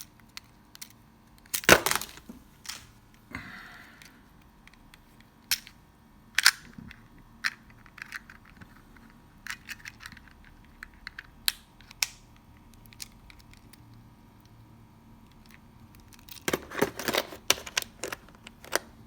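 Scattered sharp clicks and knocks from a car alarm kit being handled, with a short hiss about four seconds in and a fast run of clicking near the end.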